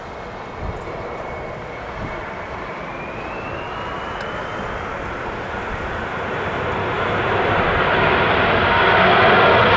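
Airbus A321-212's twin CFM56-5B turbofan engines spooling up to go-around thrust as the airliner abandons its landing and climbs away. The jet noise grows steadily louder, and a thin fan whine rises in pitch about three to five seconds in.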